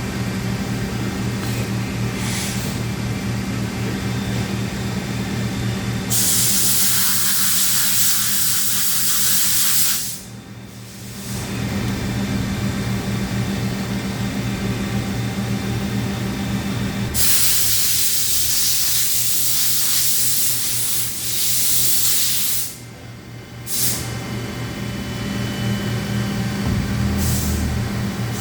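Steady electrical and hydraulic hum of a Johnford HT-60-2D CNC turning center under power. Two long hisses cut in, one about four seconds long and one about six, each stopping sharply.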